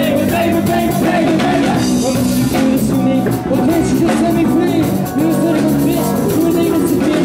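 Live punk rock band playing loud and steady: distorted electric guitar, electric bass and drum kit, with a male lead vocal singing over them.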